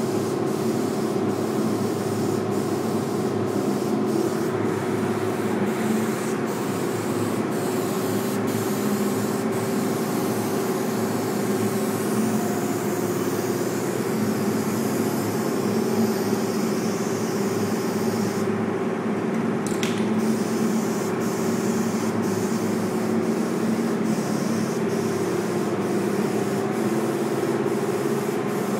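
Paint spraying with a steady, continuous hiss over a steady mechanical hum.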